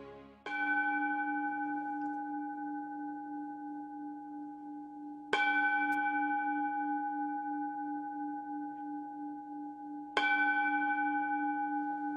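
A Buddhist bowl bell (singing bowl) struck three times, about five seconds apart. Each strike rings on with several steady tones over a low hum that wavers slowly as it fades.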